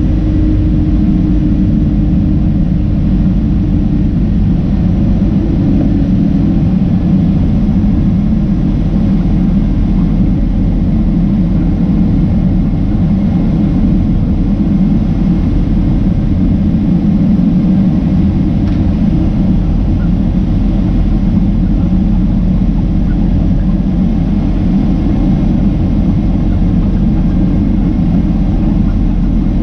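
Steady low drone of engine and airflow noise heard inside the cabin of a Boeing 767-300ER airliner as it climbs through cloud. The noise is heaviest in the low range, and a faint steady tone over it fades out in the first few seconds.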